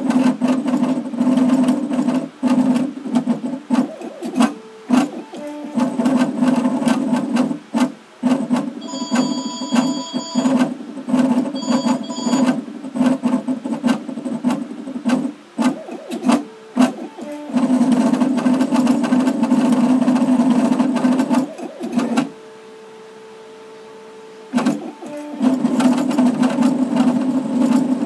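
Engraving machine running as its diamond tip engraves lettering into a pewter tankard: a steady buzzing hum peppered with small ticks and clicks. It breaks off briefly a few times. Near the end it stops for about two seconds, leaving only a faint steady whine, then starts again.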